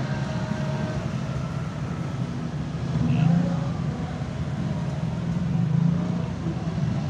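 Cars driving past on a roundabout road over a steady low traffic rumble, the sound swelling as one passes about three seconds in and another near six seconds.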